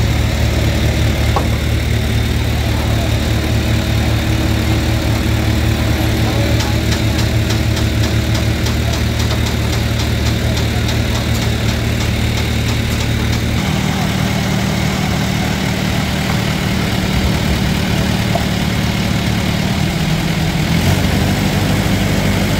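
A heavy vehicle's diesel engine idling steadily, its low note shifting a little over halfway through as the engine speed changes. A light ticking, about three a second, runs for several seconds in the middle.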